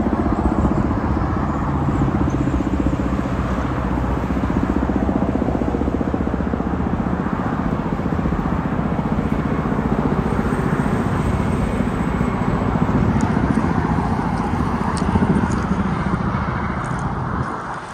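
A twin-rotor Kamov Ka-32 helicopter flying overhead with a firefighting water bucket slung beneath it. Its rotors make a steady, fast, even thudding, which eases slightly near the end.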